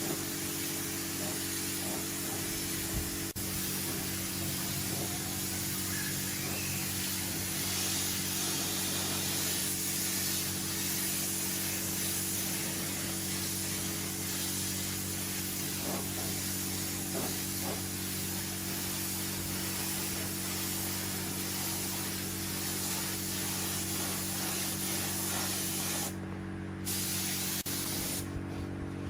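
A machine running steadily: a constant hum under a loud hiss.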